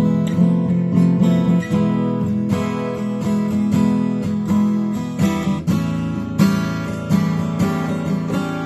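1970s Aria 9290 jumbo flat-top acoustic guitar, a Gibson J-200 copy, played with strummed chords that ring on between strokes.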